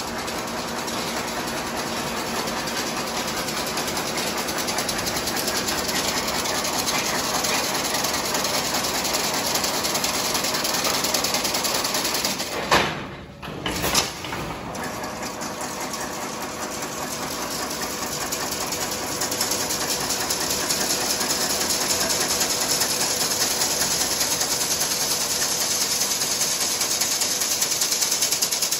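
Automatic chain-link fence weaving machine running at about 700 RPM, a dense steady mechanical clatter as it twists galvanized wire into mesh. Near the middle the sound drops away for about a second, with a sharp click at either end.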